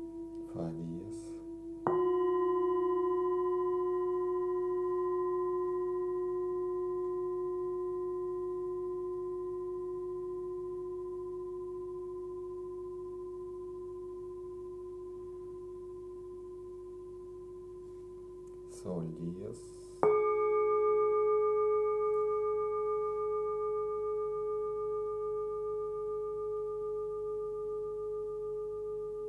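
Hand-forged Tibetan singing bowls struck one at a time with a felt-covered mallet. A lower bowl rings out about two seconds in and fades slowly. A higher-pitched bowl is struck about twenty seconds in and rings on with a slow wavering pulse.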